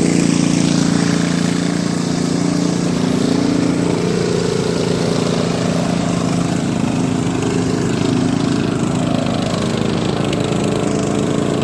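Riding lawn mower engine running steadily, its pitch shifting slightly now and then.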